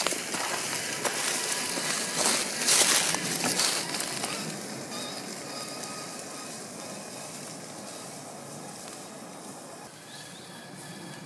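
Dry fallen leaves crunching and crackling under the tyres of an Axial SCX6 1/6-scale RC crawler, loud for the first four seconds or so, then fading to a faint rustle as the car moves away.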